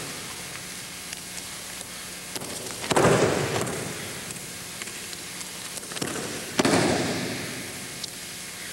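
Two loud slaps of a body hitting the mat in aikido breakfalls, about three and a half seconds apart, each ringing on in the gymnasium's echo.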